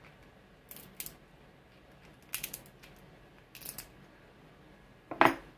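Cooked shellfish shell cracking and crackling as it is pulled apart by hand, close to the microphone: a few scattered clicks and crunches, with the loudest snap near the end.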